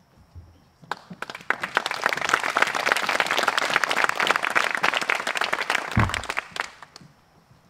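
Audience applauding. The clapping starts about a second in, swells, and dies away near the end, with a dull thump shortly before it stops.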